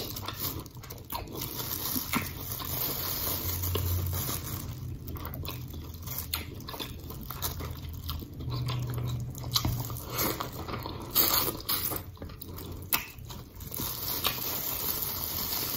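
Close-up mouth sounds of someone eating seafood-boil shrimp and sausage: wet chewing and lip-smacking with irregular small clicks.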